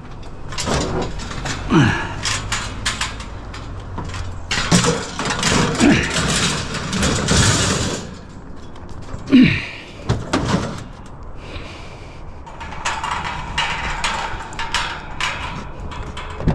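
Metal wire racks and grill grates clanking, rattling and scraping against each other as they are loaded into a pickup truck bed, with the loudest clank about halfway through. At the very end there is a click as the truck's door handle is pulled.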